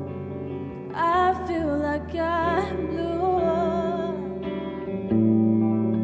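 Electric guitar playing sustained, effects-treated chords, with a woman's voice singing a held, wavering line from about one second in until about four seconds. A new, louder chord comes in near the end.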